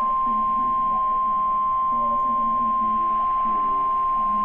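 NOAA Weather Radio 1050 Hz warning alarm tone: one loud, steady single-pitch tone, the signal that a warning message is about to be broadcast.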